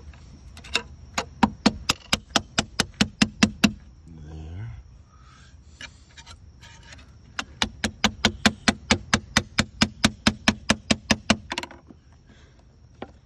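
A hammer tapping a putty knife wedged under a transducer bonded to a boat hull with 5200 adhesive, driving the blade in to break the bond. Two runs of quick, sharp taps, about five a second, the second run longer.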